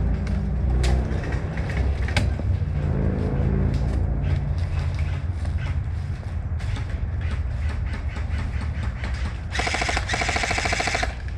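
Steady low rumble with two sharp cracks about one and two seconds in, then near the end a rapid full-auto burst from an electric airsoft gun lasting about a second and a half.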